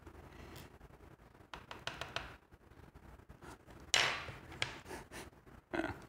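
Small metal clicks and taps as tweezers work a key pin out of a brass padlock plug and set it in a pin tray. A scattered run of light clicks comes about one and a half to two seconds in, and the loudest click, with a short scrape, about four seconds in.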